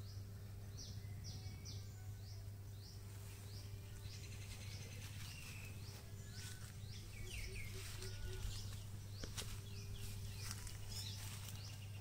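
Small birds chirping outdoors: short, high, downward-sweeping calls repeated about twice a second, busier in the second half, over a steady low hum.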